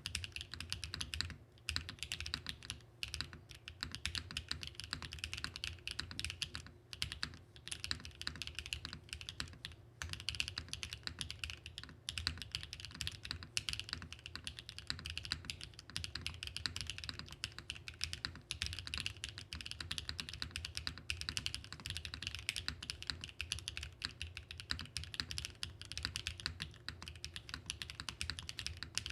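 Continuous fast typing on a Mode65 (2024) mechanical keyboard with BSUN Bunny linear switches: dense, rapid keystroke clacks with a few brief pauses. The switches bottom out with a bright but deep clack, and their return stroke is very quiet.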